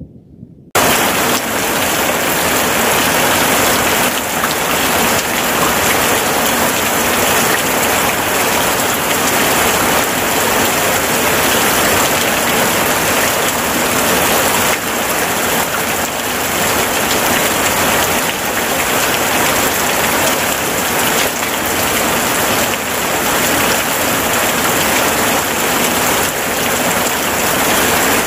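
Steady heavy rain, cutting in suddenly about a second in and keeping up an even hiss.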